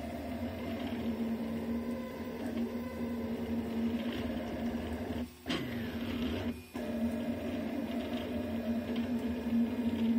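Delta 3D printer printing: a steady mechanical hum with a constant low tone from its motors and hotend fan. The sound drops out briefly twice near the middle.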